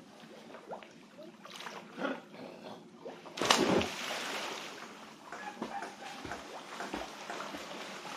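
Water splashing as swimmers thrash in the sea; about three and a half seconds in comes a big, sudden splash close by, followed by continuous churning and sloshing water.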